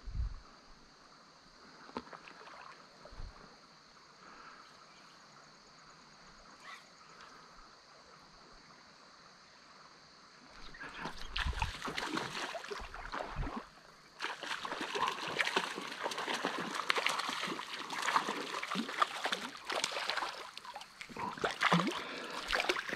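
Faint creek flow, then about ten seconds in a hooked trout starts splashing and thrashing at the surface, a run of loud irregular splashes that goes on as it is fought through the shallow weed beds.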